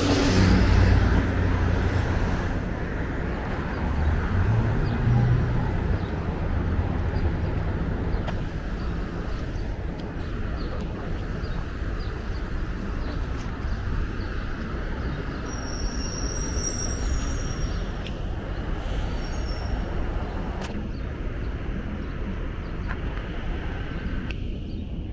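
Street traffic: a vehicle passing close with a heavy low rumble in the first couple of seconds, an engine rising in pitch a few seconds in, then steady road noise of passing cars. A brief high-pitched sound rings out about two-thirds of the way through.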